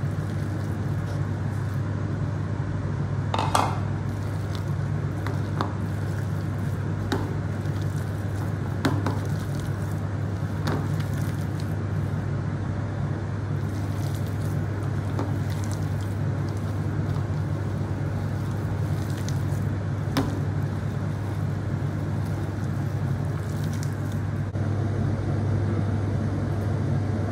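Hand squishing and mixing a thick gram-flour batter with sliced onions in a bowl: scattered wet squelches and small clicks. A steady low hum runs underneath.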